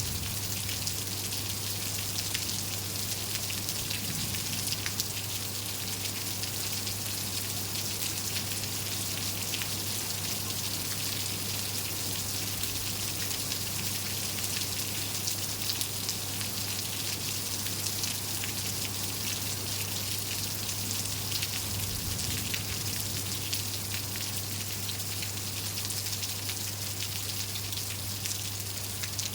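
Steady rain falling, a constant hiss with many individual drops ticking on surfaces, over a steady low hum.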